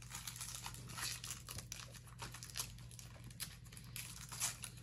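Wrapping paper crinkling and tearing in short, irregular rustles as a small gift is unwrapped.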